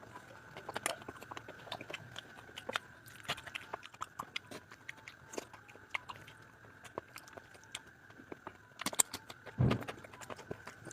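Close-miked eating: a person chewing food with irregular wet clicks and smacks, and one louder thump about nine and a half seconds in.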